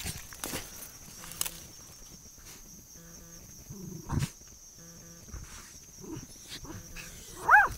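Fell terrier digging and snuffling down a hole in a rotten stump, with scattered scratching of dirt and wood. Near the end it gives one loud sharp bark, the first of several, barking because it can't reach the animal inside.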